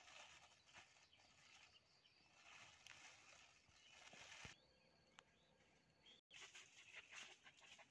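Near silence: faint outdoor ambience with light scattered crackles and a brief dropout about six seconds in.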